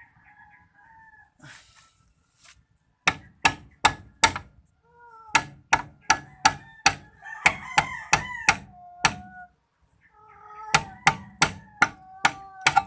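Hammer blows on a seized disc brake caliper, in three quick runs of about five, ten and seven strikes, as the stuck part refuses to come free. A wavering, high-pitched cry sounds between and under the blows.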